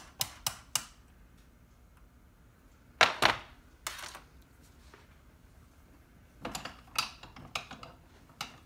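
Light hammer taps on a 1/4-inch socket, driving a star-washer keeper onto a starter armature shaft, three in the first second. A loud double knock comes about three seconds in, then scattered metal clicks and knocks near the end.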